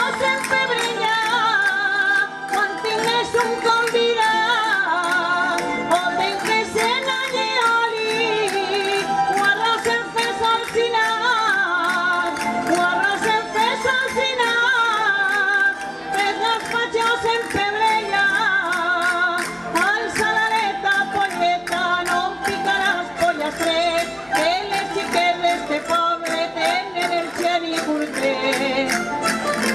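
Live Valencian jota played by a plucked-string band of guitars, with a solo voice singing the melody over it. Dense, rhythmic sharp clicks run along with the strumming.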